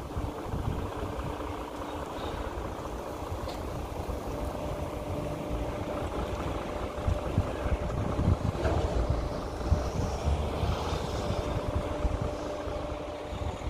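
Steady low rumble of a truck engine idling, with wind buffeting the microphone.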